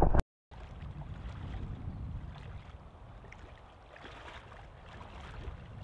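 Steady rush of a river flowing, with some wind on the microphone. It starts after a short gap of silence near the beginning.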